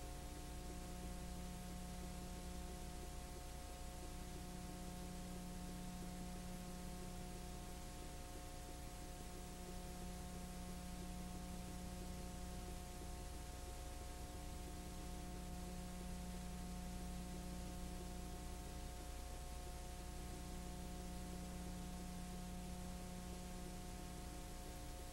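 Steady electrical hum with a layer of hiss: the background noise of a silent film transfer. Several steady tones sit over the hiss, and the lowest hum dips briefly every few seconds.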